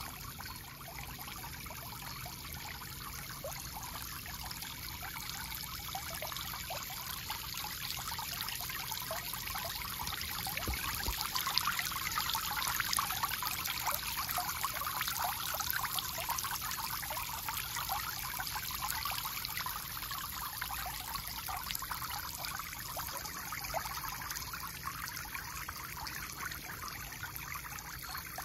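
Small garden fountain's spray jets splashing and trickling back into its basin, a steady rush of water that swells somewhat in the middle.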